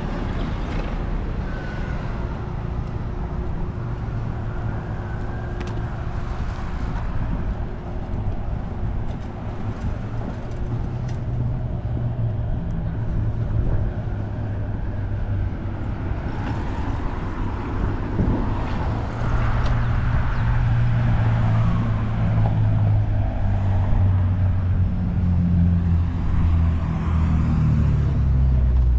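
City street traffic: cars and engines running past under a steady low rumble, which grows louder about two-thirds of the way through as a heavier engine comes near.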